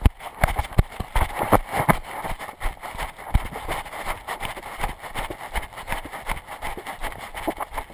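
Running footsteps on a dirt trail: a quick, slightly uneven series of thuds, about two to three a second, picked up by a camera worn by the runner.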